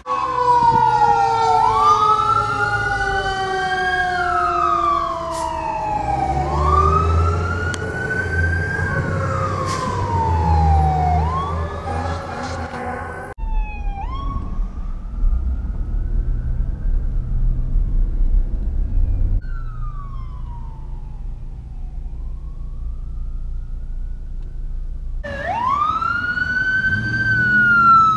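Emergency vehicle sirens wailing, several overlapping sweeps rising and falling over the rumble of passing traffic. A fainter siren follows, heard from inside a moving car, and near the end a close siren starts a loud new wail.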